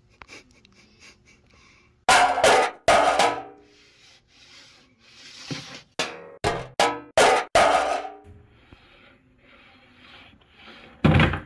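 Pneumatic brad nailer firing brads into a glued wooden strip, about nine sharp shots. Two come about a second apart, then a quick run of six about half a second apart, then one more near the end.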